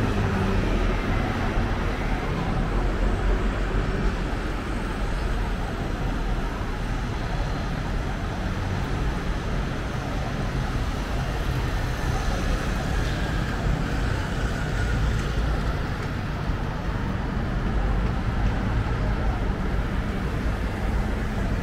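Steady city street traffic noise: the continuous low rumble of passing vehicles, with no single sharp event standing out.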